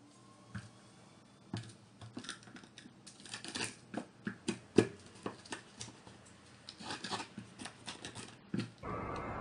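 Pestle crushing and grinding garlic, candlenuts, coriander seeds and salt in a cobek mortar: irregular knocks and gritty scrapes, the loudest one about halfway through. Just before the end a steady hiss sets in.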